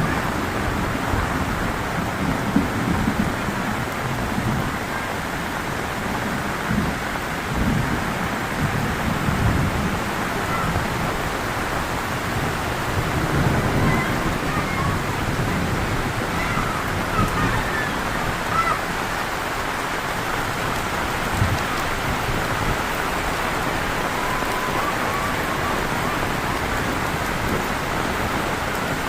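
Heavy rain falling steadily, with low rumbles of thunder coming and going.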